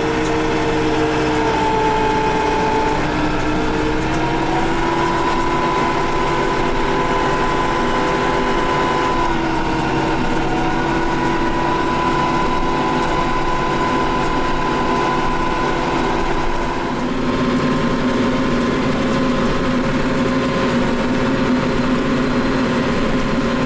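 RK 74 tractor's diesel engine running steadily, heard from inside the cab while driving, its pitch shifting slightly a few times as engine speed changes; about seventeen seconds in the engine note changes and settles at a new steady pitch.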